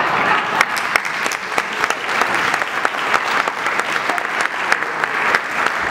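Dinner audience applauding: many hands clapping at once, right after the punchline of a joke.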